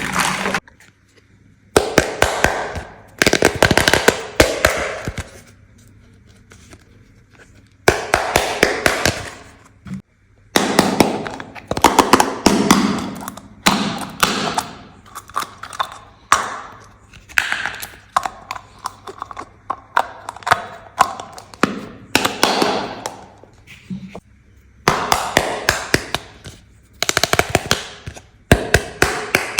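Small hard-plastic toy pieces and their packaging being handled in bursts: quick sharp clicks and taps over rustling, with short pauses between bursts and a longer lull about a third of the way in.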